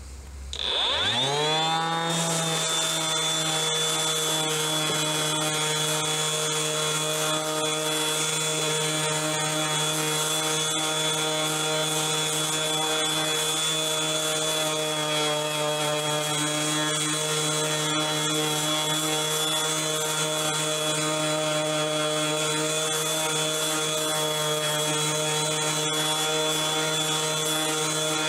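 Ryobi RROS18C 18 V brushless 125 mm random orbital sander switched on about a second in, its pitch rising as it spins up. It then runs steadily on its third speed setting while sanding a rough, weathered board with 80-grit paper: a steady motor hum with a thin high whine over the scratch of the paper.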